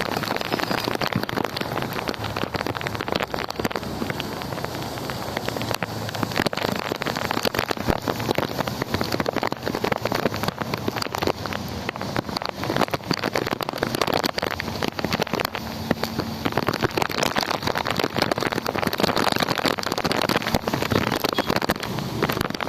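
Strong wind blowing: a loud, steady rushing noise full of crackle.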